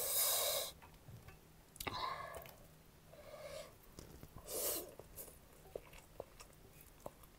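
Close-up mouth sounds of someone eating spicy food: four short, breathy hisses or slurps, the first near the start and the others about two, three and a half and nearly five seconds in. Soft chewing clicks fall between them. The breaths go with a throat burning from the spice.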